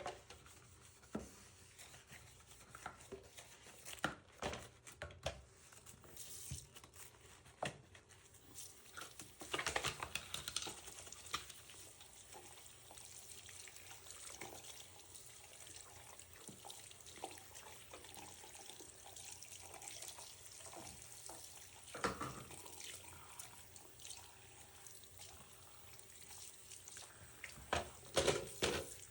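Water running from a tap into a sink in short spells, among scattered knocks and clatters of things being handled.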